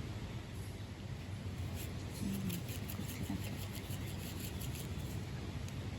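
Light scraping of a utensil against a pan or bowl, in a run of quick strokes through the middle, over a steady low background rumble. This is likely the egg-and-onion topping being served onto rice.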